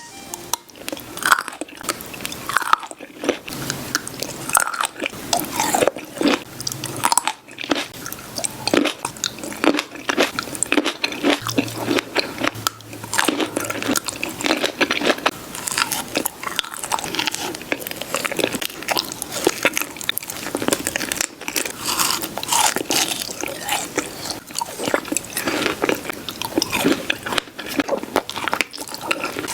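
Close-miked biting and chewing of fresh fruit: a continuous run of crunchy, wet bites and chews.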